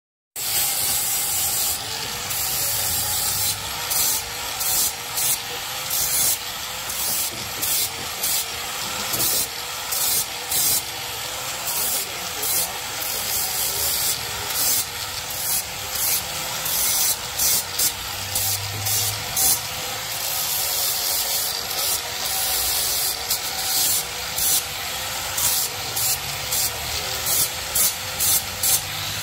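Abrasive rubbing or sanding on stainless steel: many short, harsh scraping strokes in irregular succession over a steady hiss, with a faint wavering hum underneath.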